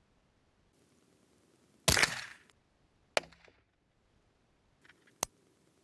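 A single shot from a Ruger 10/22 semi-automatic rifle firing a CCI Mini Mag .22LR round: a sharp crack about two seconds in that fades out within half a second. A second, shorter crack follows about a second later, and a faint click near the end.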